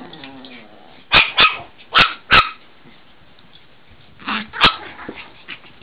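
Small puppies barking in play: six sharp barks in three quick pairs, the first pair about a second in, the next about two seconds in, the last near four and a half seconds.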